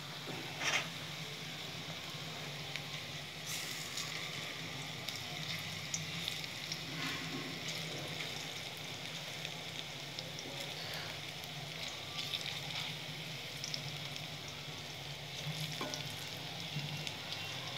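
Coriander-leaf fritters deep-frying in oil in a steel wok: a steady sizzle with crackling. A metal spoon scrapes and clinks against the wok as the fritters are turned, the sharpest clink about a second in.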